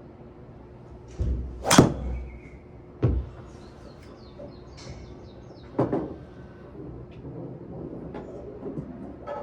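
Titleist TSR4 driver striking a golf ball: one sharp, loud crack about two seconds in, followed by a couple of duller thumps.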